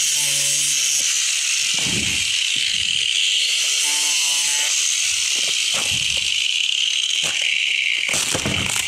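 Small angle grinder running at full speed with a steady high whine, its cutting disc working through a taped cardboard parts box; the whine eases down near the end.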